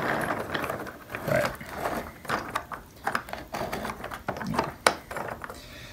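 A wooden toy engine pushed by hand along wooden track into a low tunnel: its wheels rolling and rattling on the track, with scattered clicks and knocks and one sharp click about five seconds in.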